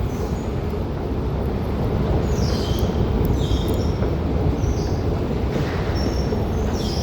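A train rumbling steadily, with several brief high-pitched wheel squeals from about two seconds in.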